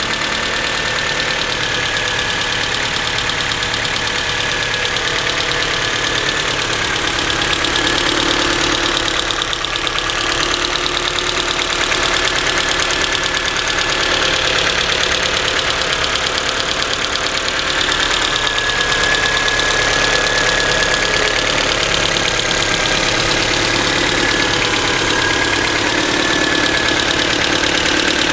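Engine idling steadily with a rapid ticking from the cylinder head that remains after the valves were adjusted twice; the owner cannot find its cause.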